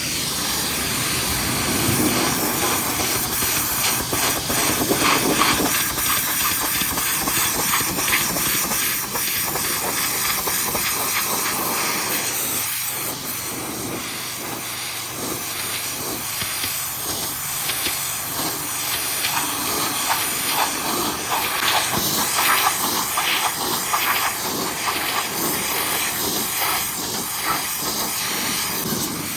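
High-pressure washer spraying: a steady hiss of the water jet, with spattering as the spray strikes the truck's wheels and lower panels and strips off caked mud.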